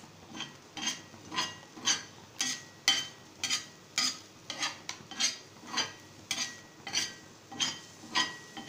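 A metal spatula scraping and tapping on a tawa in an even rhythm of about two strokes a second, each stroke with a short ring, as soft egg is gathered in from the edges to make kalakki.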